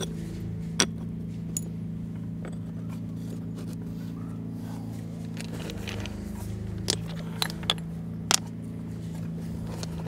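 Stones clacking against each other as cobbles and flagstone pieces are set by hand: a few sharp clacks near the start and a cluster about seven to eight seconds in, over a steady low hum.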